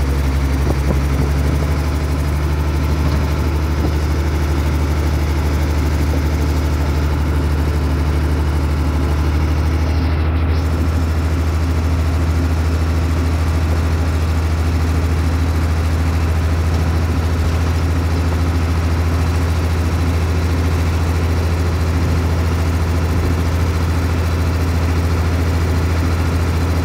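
Recovery crane's heavy engine running steadily, a deep unbroken drone, as it hauls an overturned truck upright.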